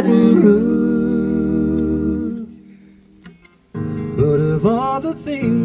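Live music: male voices singing held harmony chords at the opening of the song. The chord breaks off about two and a half seconds in, and after a short pause the voices come back in, with some notes sliding up into place.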